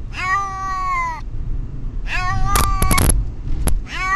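Domestic cat meowing in distress: three long drawn-out meows, with a few sharp clicks during and after the second one. A low rumble runs beneath.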